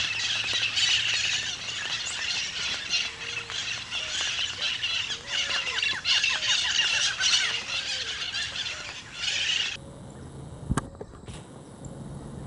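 Barred antshrike singing amid steady rain pattering. Near the end the sound drops abruptly to a quieter thicket, with a few sharp clicks.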